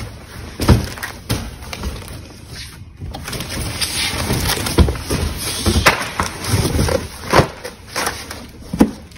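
Cardboard boxes being shifted and a large box dragged up out of a pallet: scraping and rustling cardboard with several sharp knocks.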